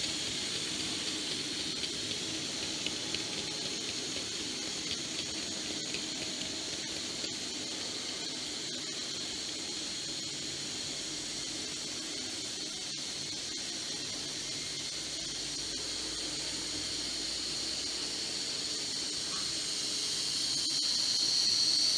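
Z-scale model trains running on the layout: a steady high hiss and whine of tiny motors and wheels on the track, with scattered faint clicks. It grows louder near the end as a locomotive pulling passenger coaches runs past.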